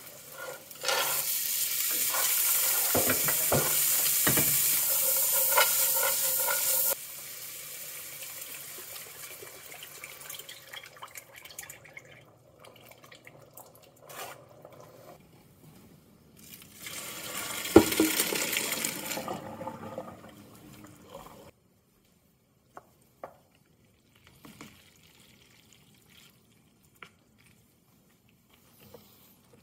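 Stovetop skillet of roux hissing and bubbling as liquid is poured in and stirred, in two loud spells, the first lasting about six seconds. Near the end, only a few light clicks of a wooden spoon against the pan.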